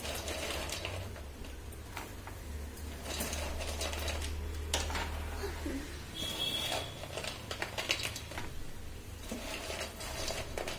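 Soya chunks boiling hard in water in a steel pot on a gas burner: a steady low rumble with bubbling and irregular small clicks and ticks.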